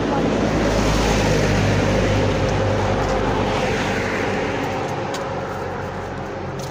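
A motor vehicle going past: a steady engine rumble that swells over the first second or two, then slowly fades away.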